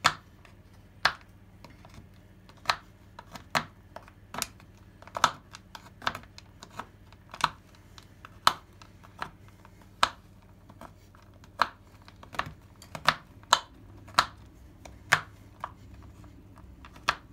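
Sharp kitchen knife chopping a bar of white chocolate on a wooden chopping board: irregular sharp knocks of the blade against the board, about one or two a second.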